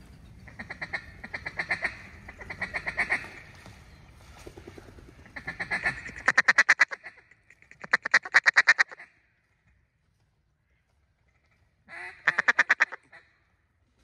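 Duck calls blown in several short runs of rapid, chattering notes, close and loud, with a pause before a last run near the end. A low background rumble cuts off about six seconds in.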